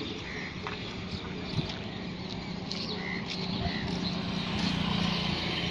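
Roadside ambience with a motor vehicle's engine hum, growing louder toward the end as the vehicle draws near.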